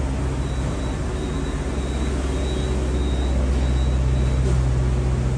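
Steady low hum of a Sentosa Express monorail train standing at the platform, with a faint high whine that comes and goes.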